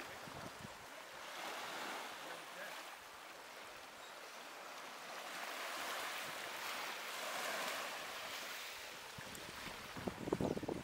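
Small sea waves washing onto a beach, the surf swelling and fading twice, with a brief gust of wind on the microphone near the end.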